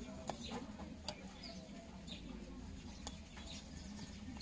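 Small birds chirping repeatedly in short, falling chirps, with about three sharp clicks from a remote control's circuit board and plastic casing being handled.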